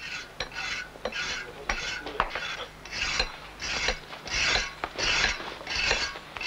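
Rhythmic scraping strokes, about two a second, of a hand tool working a sandstone block.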